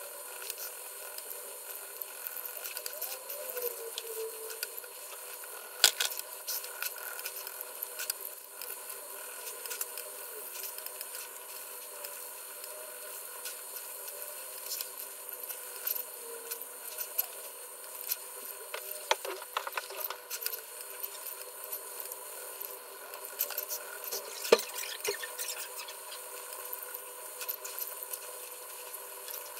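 Pelikan colored pencils scratching and shading on drawing paper, a run of small scratchy strokes over a steady hiss, with a few sharp clicks, the loudest about six seconds in and again about twenty-four seconds in.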